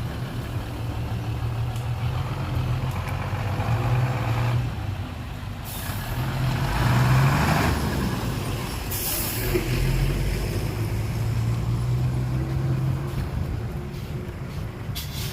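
Heavy diesel engines of a bulldozer and dump truck running steadily at work. Bursts of air hiss break in about six seconds in and again about nine seconds in, the first running into a louder rush of noise.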